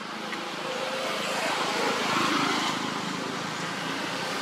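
A passing motor vehicle's engine, growing louder to a peak about two seconds in, then easing off.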